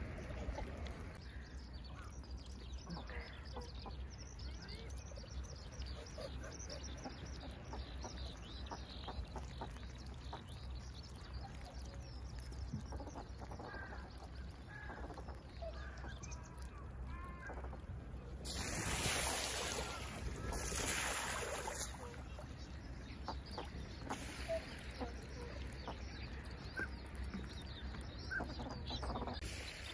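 A flock of wild ducks on a pond calling, with many short scattered calls throughout. About two-thirds of the way through come two louder rushes of noise, each lasting a second or two.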